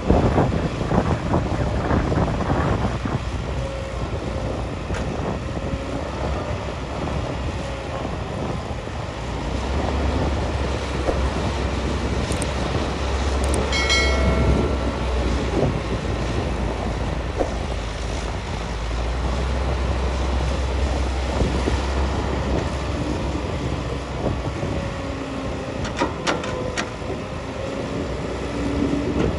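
CAT 320 excavator working: its diesel engine and hydraulics run continuously, the low rumble growing heavier for a stretch in the middle as the machine works under load. There is a short squeal about halfway, and a few sharp metal clanks near the end.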